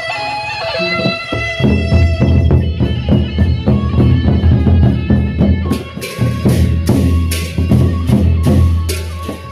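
Lombok gendang beleq ensemble playing: a held melodic line on a pitched instrument opens, then the big double-headed barrel drums come in about a second and a half in with fast, heavy beats. From about six seconds, cymbals clash in a quick rhythm over the drums.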